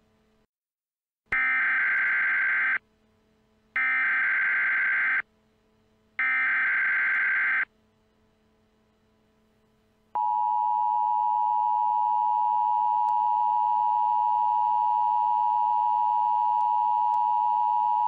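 Emergency Alert System tones. First come three short bursts of SAME header data, each about a second and a half long with pauses between. About ten seconds in, the steady two-tone EAS attention signal starts and holds for about eight seconds. Together they mark the start of a civil danger warning alert.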